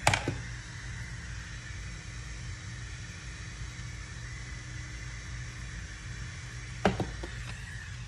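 Two sharp knocks as hair-styling tools are set down and picked up, one at the very start and one about seven seconds in, over a steady low room hum.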